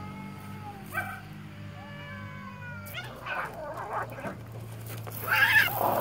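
Two cats in a standoff, yowling with long rising and falling calls. About three seconds in they break into a fight with harsh screeching and hissing, loudest near the end, and then a spray of water splashes over them.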